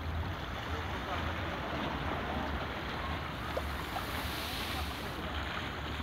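Wind rumbling on the microphone over the steady wash of small waves lapping against shoreline rocks.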